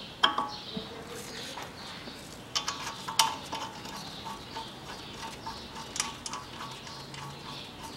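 Light metallic clicks and knocks of a gloved hand handling the steel timing-belt sprockets and cover of a VAZ 2110 16-valve engine, with a quick cluster of clicks about three seconds in and another click about six seconds in.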